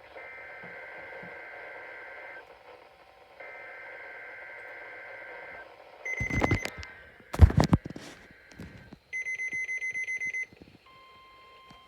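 NOAA Weather Radio emergency alert test: two buzzy EAS data bursts of about two seconds each, then loud knocks and clatter, then a quick run of electronic beeps at about seven a second, and a steady alert tone starting near the end.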